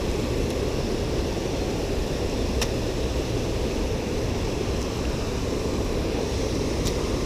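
Steady rush of water pouring over a low stone weir, with two faint clicks, one about two and a half seconds in and one near the end.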